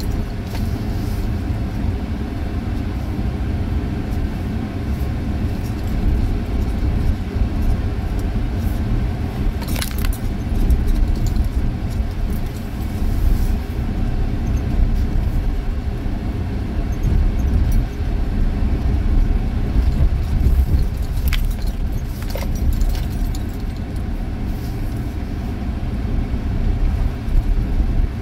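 Car cabin noise while driving on a sand beach track: a steady low rumble from the engine and tyres, with a few sharp rattles about ten seconds in and again twice a little after twenty seconds.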